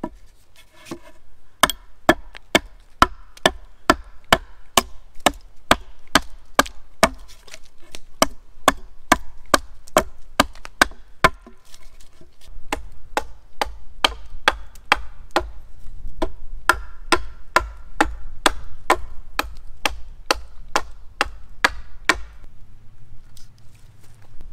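Small hatchet chopping the end of an upright wooden pole into a point against a log chopping block: a steady run of sharp wooden strikes, about two a second, starting about two seconds in and stopping a couple of seconds before the end.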